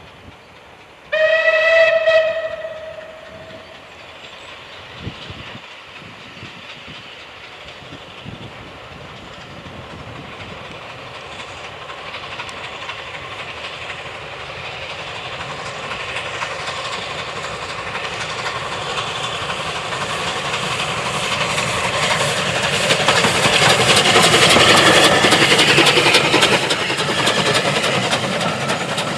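Unrebuilt Bulleid West Country class Pacific steam locomotive 34092 'City of Wells' sounds one short whistle blast about a second in. Its working exhaust and the train's running noise then build steadily as it approaches hauling its coaches and passes close by, loudest a few seconds before the end.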